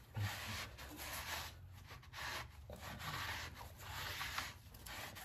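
Cloth rag wiped back and forth across the face of a new flywheel on a VW air-cooled engine, in repeated rubbing strokes. It is cleaning the protective anti-rust film off the flywheel with brake cleaner, so that the clutch won't slip.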